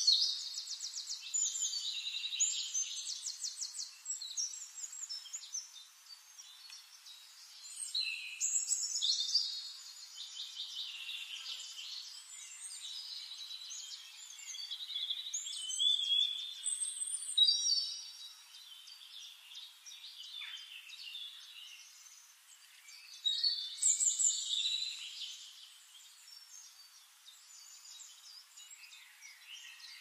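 Songbirds singing: bouts of rapid high trills and twittering, four louder bursts of a few seconds each with softer chatter between.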